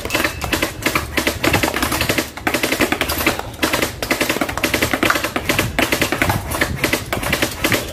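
Jinming M4A1 gel blaster firing at full auto, a fast run of sharp clicks from its battery-driven gearbox, with a few short breaks between bursts.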